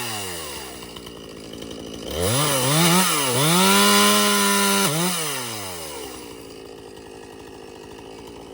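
Chainsaw engine coming off full throttle and dropping to idle, then revved twice in quick blips and held high for about a second and a half before falling back to a steady idle. It is the saw at work cutting the felling notch (wedge) in a tree.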